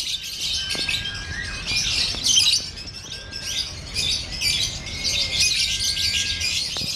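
Lovebird singing a long, unbroken run of rapid high chattering in the "konslet" contest style.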